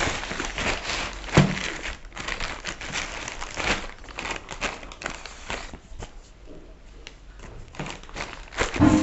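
Plastic courier packaging crinkling and rustling as it is handled and pulled open, with a dense run of crackles that thins to scattered clicks about halfway through. A single sharper knock sounds a little over a second in.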